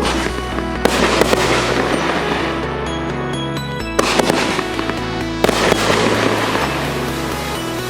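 A 500 g consumer firework cake (Starget A5555 'Huge Attack') firing volleys. Bursts of bangs trail off into crackle at the start, about a second in, about four seconds in and again about a second and a half later. Background music with a steady stepping bass plays under them.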